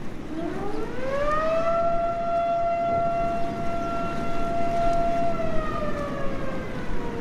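Outdoor civil defense siren sounding a tsunami warning. Its wail rises in pitch over about a second, holds one steady tone, then slowly falls near the end, over a rushing noise of floodwater.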